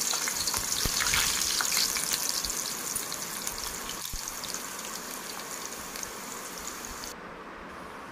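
Frozen potato sticks deep-frying in hot oil in a wire basket, with a steady sizzling hiss and fine crackling. It dies down gradually, and the highest hiss drops away near the end.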